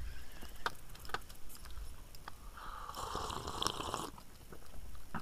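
Spinning rod and reel in use: a few small tackle clicks, then a rasping whir of line and reel for about a second and a half, starting about two and a half seconds in.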